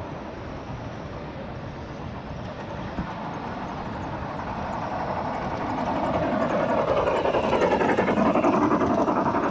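G scale model trains running on the track, a steady rumble of wheels and motors with a single click about three seconds in. The rumble grows louder from about halfway as a model steam locomotive and its freight cars pass close alongside on the neighbouring track, their pitch dipping and rising again as they go by.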